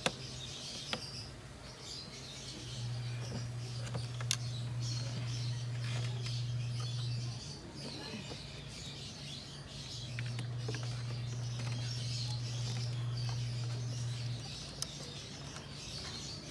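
Birds chirping in the background over a low steady hum that twice runs for several seconds and drops away, with a few sharp metallic clicks from pliers working the intake hose clamp.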